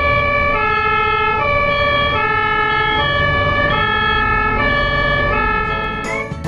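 Ambulance two-tone hi-lo siren, alternating steadily between a high and a low note about every three-quarters of a second, over a low rumble of traffic.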